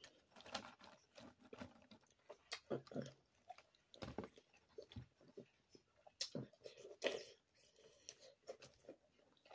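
Eating boiled crawfish: irregular wet chewing and sucking, with short sharp cracks and clicks of the shells being broken and peeled by hand.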